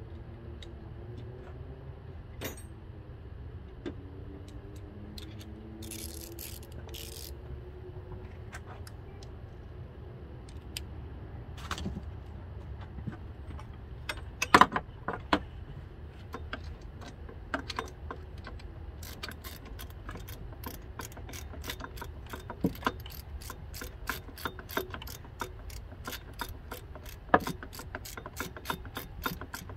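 Ratchet wrench clicking in quick, even strokes, about four a second, through the last third, as a fastener is worked in the engine bay. Before that, scattered metallic clicks and knocks of tools and parts.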